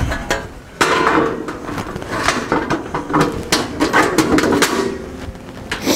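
Sheet-metal panels of a metal rollaway nest box clattering and knocking as a side panel is handled and fitted into place. A quick run of knocks and rattles starts about a second in.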